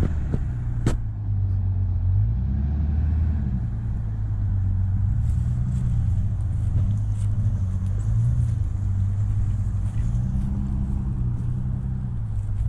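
Opel Frontera 4x4's engine revving up and down again and again as it works through deep mud ruts, with one sharp knock about a second in.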